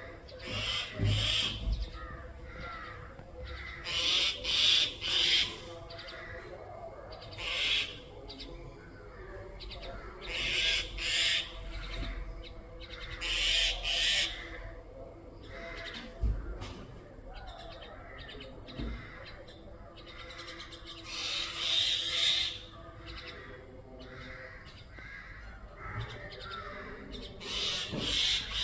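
Mynah giving harsh, rasping alarm calls in clusters of two or three every few seconds: the alarm of a bird frightened by a cat.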